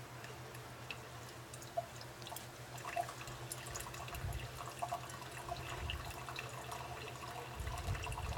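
Pour-over coffee brewing: water trickling and dripping through the grounds and paper filter into the mug, in light irregular drips over a low steady hum.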